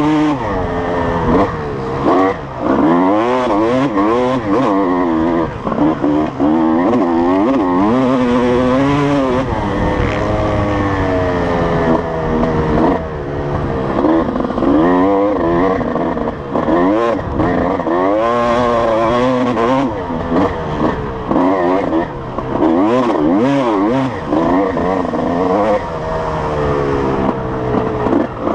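Honda CR250 two-stroke motocross engine under hard riding: the pitch climbs and falls again and again as the throttle is opened and shut through the gears, with brief dips every second or two. Heard from the rider's helmet.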